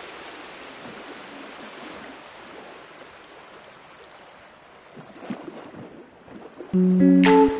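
Sea waves washing, a steady hiss that slowly fades. Near the end, plucked guitar music comes in loud.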